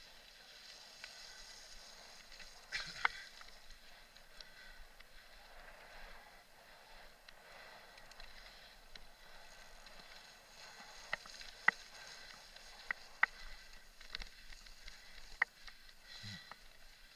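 Mountain bike rolling over a bumpy grass and dirt singletrack, with a steady hiss of tyres and drivetrain. Sharp knocks and rattles come as it hits bumps: one about three seconds in, then a run of them in the second half.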